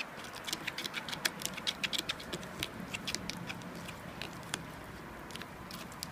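Slime being mixed, giving a run of quick sticky clicks and pops. They are densest in the first three seconds and thin out after that.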